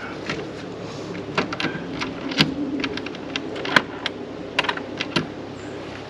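Irregular sharp clicks and knocks as the latch and hardware of a shed's double doors are worked to open them.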